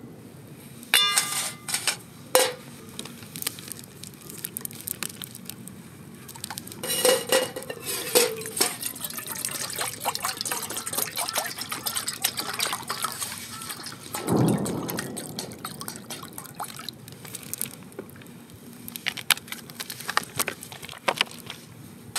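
Aluminium Trangia camp cookware clinking and ringing briefly as the pots are lifted and set down, then water poured from a plastic bottle into an aluminium pot for several seconds, with a dull bump partway through and a few light taps near the end.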